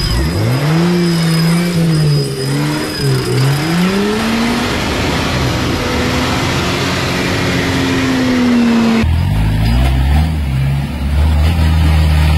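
Off-road racing buggy's engine revving hard and unevenly, its pitch rising and falling repeatedly as it claws up a steep dirt bank. About nine seconds in, a sudden cut brings a lower, steadier engine drone.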